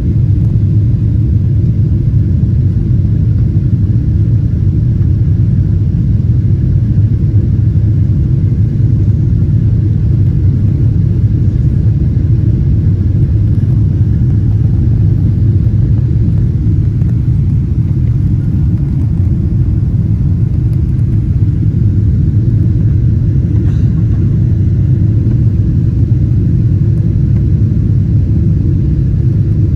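Boeing 777-300 jet engines and airframe heard inside the passenger cabin as a loud, steady low rumble at high thrust, typical of the takeoff roll and climb.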